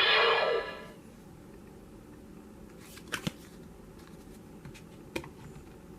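Edited transformation-belt sound effect: the shimmering tail of the "Invisible" Attack Ride effect fades out within the first second. A few soft clicks follow, twice about three seconds in and once near five seconds, over a low hiss.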